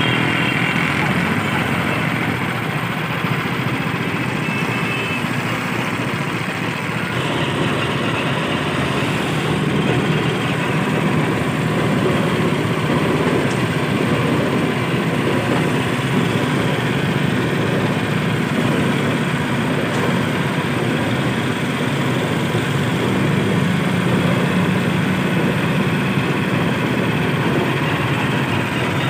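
Mini sugarcane juice machine running steadily, its motor turning the rollers that crush the cane and press out the juice.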